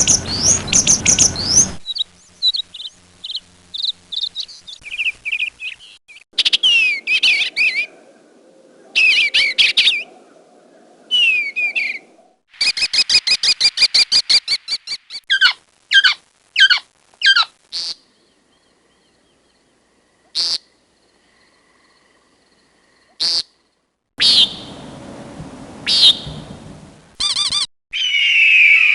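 A series of different birds' calls and songs, spliced one after another: short clips of chirps, whistled notes and rapid trills, each cut off abruptly, with brief gaps between them.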